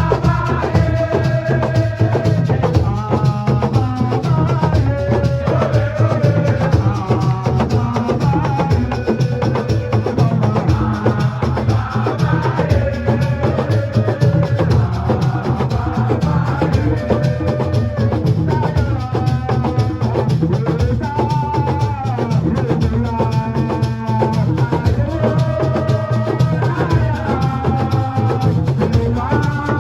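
Music with a steady drum beat and a rattling shaker, carrying a melody of held, bending notes above it.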